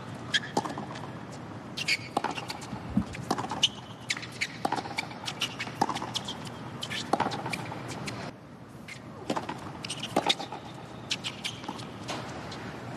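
Tennis rally on a hard court: rackets striking the ball and the ball bouncing, sharp knocks about every second, with shoes squeaking on the court over a steady crowd hum.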